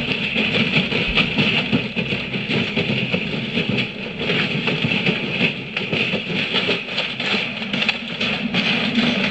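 Washing machine running with a steady mechanical noise.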